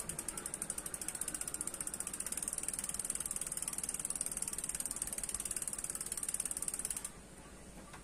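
Mountain bike rear wheel coasting freely, its freewheel pawls ticking rapidly and evenly until they stop abruptly about seven seconds in. No rubbing from the disc brake rotor is heard, the sign that the caliper now sits centred over the rotor.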